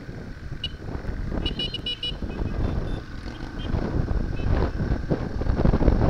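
Wind buffeting the microphone over the low rumble of a Yamaha XT225 riding at road speed. A horn gives one short beep under a second in, then a quick run of four beeps about a second and a half in.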